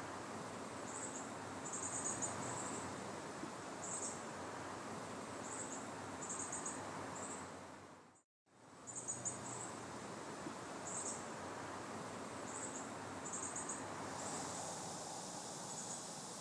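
Outdoor ambience of insects chirping: short, high chirps in quick pulse groups recurring every second or two over a steady hiss. The sound drops out to silence for a moment about eight seconds in, and the high hiss grows brighter near the end.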